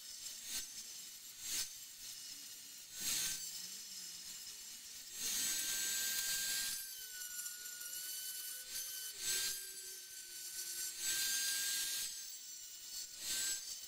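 A small high-speed die grinder (rotary tool) whines steadily as it grinds out the inside of a cast inlet manifold, opening up its chamber. Bursts of harsher grinding come and go as the bit bites, and the whine dips slightly under load about seven seconds in.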